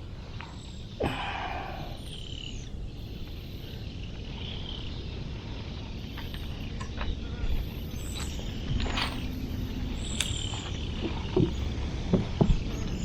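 Outdoor ambience with occasional small clicks and knocks and faint bird chirps.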